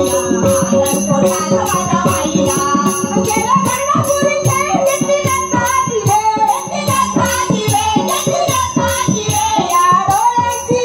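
Dindi bhajan group performing devotional music: voices singing over small hand cymbals (taal) clashing in a steady quick beat, with hand-drum strokes.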